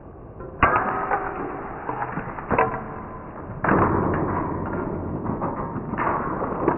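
A glass of oil heated by a gas torch cracking, then about halfway through bursting loudly as the glass shatters and the hot oil flares up in a sustained rush of flame, with another sharp crack near the end.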